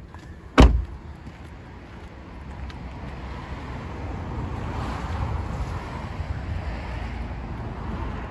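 A Hyundai Tucson's rear passenger door is shut about half a second in, one heavy thud. Steady outdoor background noise follows, growing louder, with a small click near the end.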